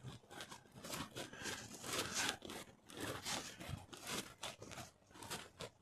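Faint, irregular rustling and crunching close to the microphone.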